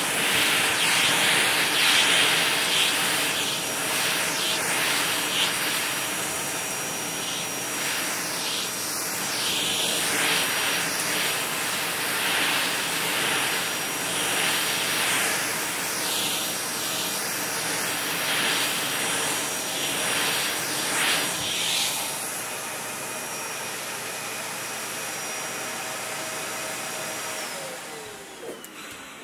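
Vacuum cleaner running on carpet: a steady motor whine under a rush of suction that swells and fades as the head is pushed back and forth over the pile. Near the end the motor is switched off and winds down, its whine falling in pitch.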